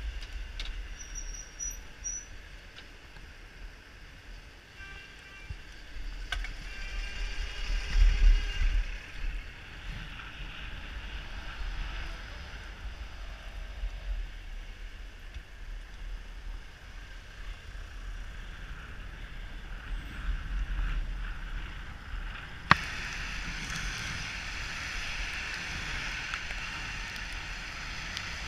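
Wind rushing over a helmet-mounted camera's microphone while cycling in city traffic, with the noise of surrounding vehicles. It swells louder about eight seconds in; near the end there is a sharp click, after which the noise turns higher and hissier.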